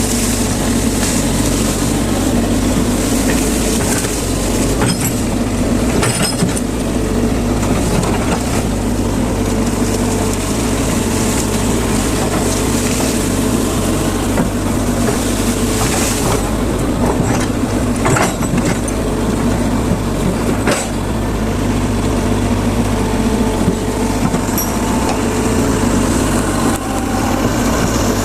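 Hydraulic excavator's diesel engine running steadily under working load, with a few sharp cracks and knocks along the way.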